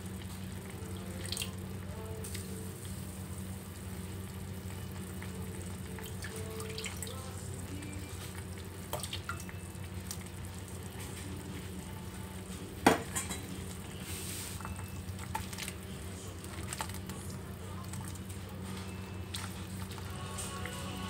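Saucepan of gambas (luffa) and seaweed soup cooking on a gas hob, with a steady low hum under it. A utensil clinks lightly against the pot now and then, with one sharp, loud clink about 13 seconds in.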